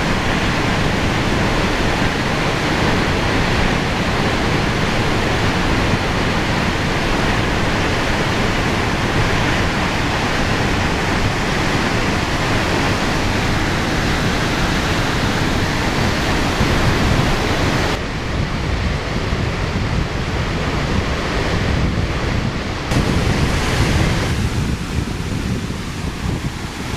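Nevada Fall and the Merced River's whitewater giving a steady, loud roar of rushing water. Its tone shifts abruptly a few times in the second half.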